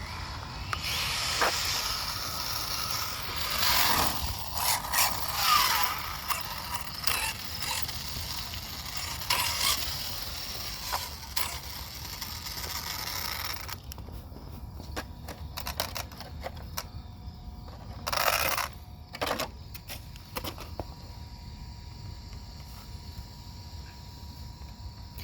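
Brushless-converted electric RC car making a speed run: dense rushing tyre and drivetrain noise with many clicks for about the first thirteen seconds, then quieter clicking and a short loud rush about eighteen seconds in.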